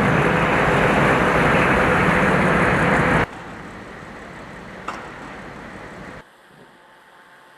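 Loud, steady vehicle engine noise that cuts off abruptly about three seconds in. A quieter steady hum follows, with a single click, and it drops to faint background shortly before the end.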